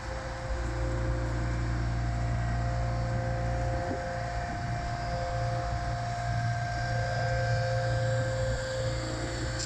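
Mobile boat hoist (travel lift) running: a steady engine drone with a fixed higher whine over it.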